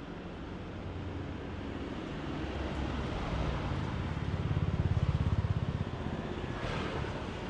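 Road traffic below, with one vehicle's engine growing louder about four seconds in, fluttering quickly as it passes, then fading.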